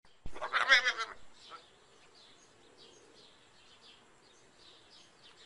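A goat bleating once, a wavering call of about a second near the start, followed by faint bird chirps.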